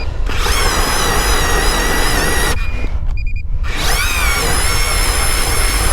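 A motor running hard with a high whine that rises and falls, briefly breaking off a couple of times.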